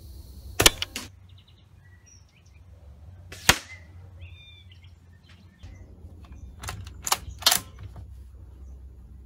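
APS APM50 CO2-powered, shell-ejecting bolt-action airsoft sniper rifle being fired and cycled. A pair of sharp cracks comes just under a second in, a single loud one at about three and a half seconds, and a quick run of three sharp clicks around seven seconds.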